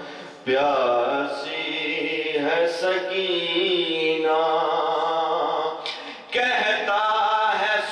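A man chanting an Urdu noha, a Shia lament, unaccompanied into a microphone: long drawn-out melodic lines, broken by a short breath just under a second in and another about six seconds in.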